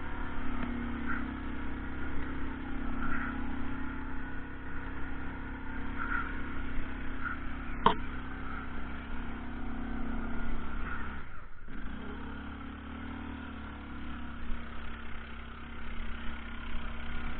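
ATV engine running steadily, working in mud, with one sharp knock about eight seconds in and a brief break in the sound shortly after.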